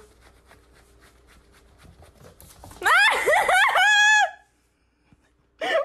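Soft footsteps on a wooden floor, then, about three seconds in, a loud high-pitched wavering cry lasting about a second and a half as a kitten leaps onto the walker's leg.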